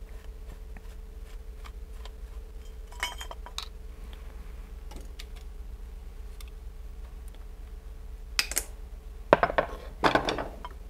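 Light metallic clicks and clinks of a Phillips screwdriver and small screws being taken out of a mini mill's motor mounting plate, with a few louder ringing clinks of metal parts being set down near the end, over a steady low hum.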